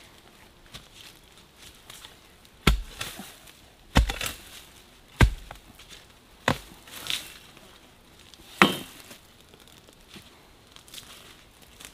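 A long digging bar struck into forest soil while digging out a bitter bamboo shoot: five sharp strikes at uneven intervals, each followed by a short rustle and crackle of leaf litter and twigs.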